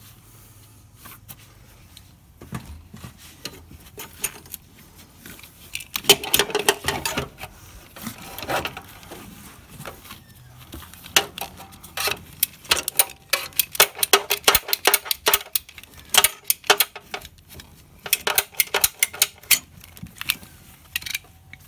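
Hand hose cutter being squeezed again and again as it chops through a rubber power steering hose: quick runs of sharp clicks and snaps, first about six seconds in, then almost without pause from about eleven seconds until near the end.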